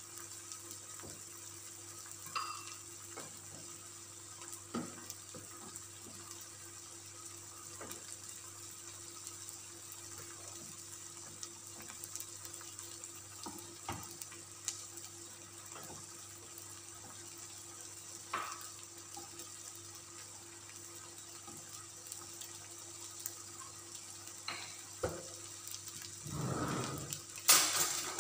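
Chicken breast simmering in a creamy sauce in a pan on a gas hob, bubbling and sizzling quietly with small scattered pops. A louder clattering noise comes near the end.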